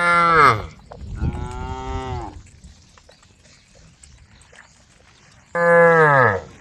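Cows mooing: three long moos, each dropping in pitch as it ends. The second is quieter, and after a pause of about three seconds a loud one comes near the end.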